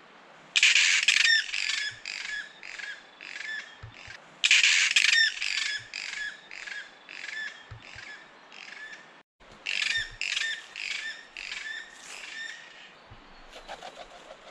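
Kākā (New Zealand forest parrots) calling overhead in three runs of harsh, squawking calls. Each run is a quick series of about eight notes that starts loud and fades away.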